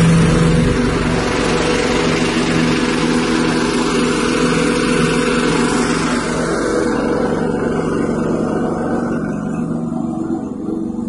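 Small 6.5 hp petrol engine running steadily, driving a rice-husk grinding machine, with a broad rushing noise from the grinding over its hum. The rushing thins out about six seconds in, leaving mainly the steady engine drone.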